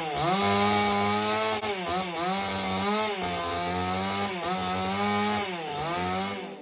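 Chainsaw running at high speed as it cuts through bamboo stems at ground level. Its pitch dips several times under load and recovers.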